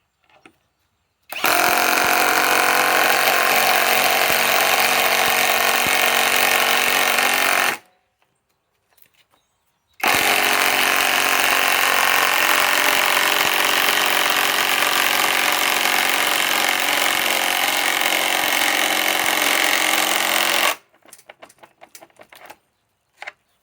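Bauer brushless 1/2-inch cordless impact wrench hammering at full speed in two long runs, the first about six seconds, the second about eleven, with a short pause between, then a few light clicks near the end.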